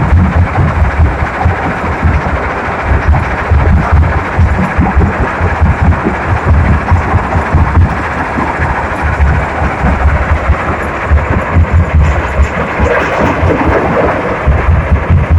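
Heavy earth-moving machine's diesel engine rumbling loudly, with uneven low thudding throughout.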